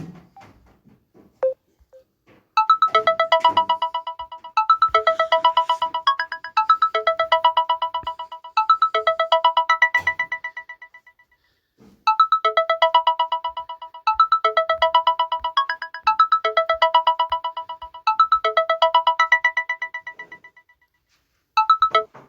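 Samsung Galaxy A21s ringtone playing: a bright electronic melody of rapidly repeated pulsing notes, heard through its phrase twice, preceded by a few short clicks. Near the end it is cut short as a different tone starts.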